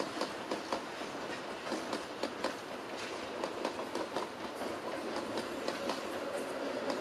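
Passenger coaches of a steam-hauled express train rolling past, wheels clicking irregularly over rail joints over a steady running noise.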